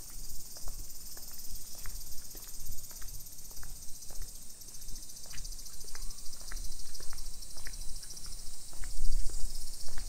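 Cicadas buzzing in the trees: a dense, steady, high-pitched chorus. Scattered light clicks sound underneath.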